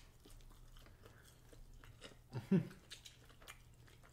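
Close-up mouth sounds of people eating turkey leg meat and fries: soft chewing with many faint wet clicks and smacks. A brief, louder low sound comes about two and a half seconds in.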